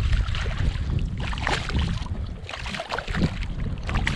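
Shallow water splashing and sloshing in irregular bursts while a hooked speckled trout is landed by a wading angler, over a steady low wind rumble on the microphone.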